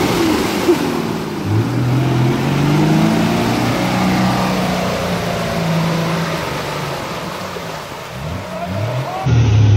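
Nissan Safari 4WD's engine revving hard, its pitch rising and falling, as it claws up a flooded, muddy bog track with its wheels churning through mud and water. Near the end the sound cuts to a steadier engine note.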